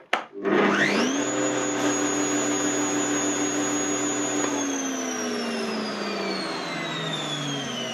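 Bosch AXT 2200 Rapid garden shredder switched on with a click: its motor and blade spin up within about a second to a steady, high whine and hold a steady speed, the normal start that shows the overspeed cut-out fault is cured. About four and a half seconds in it is switched off and winds down, its whine falling steadily in pitch.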